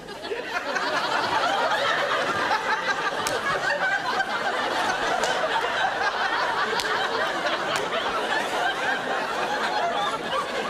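Sitcom studio audience laughing: one long, continuous bout of crowd laughter that swells within the first second and then holds steady.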